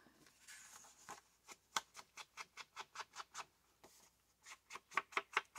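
Ink blending brush swiped in quick, scratchy strokes over the edges of patterned paper, about four strokes a second. There is a short pause, then a second run of strokes near the end.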